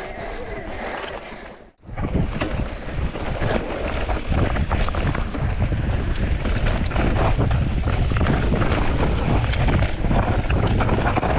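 Wind buffeting the microphone over dense rattling and knocks from an e-mountain bike riding fast over rough trail. The sound cuts out briefly about two seconds in, then comes back louder.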